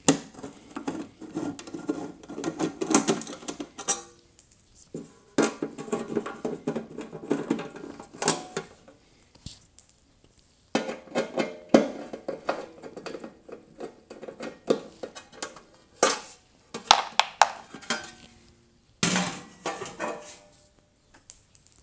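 Metallic rattling and clinking in several stretches with short pauses between, as bolts are backed out with a 1/4-inch nut driver and the sheet-metal rear access panel of a GE side-by-side refrigerator is worked loose and pulled off.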